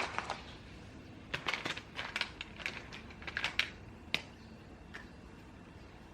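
Irregular short scratchy clicks and rustles of someone working at a desk, in small clusters, with one sharper click about four seconds in.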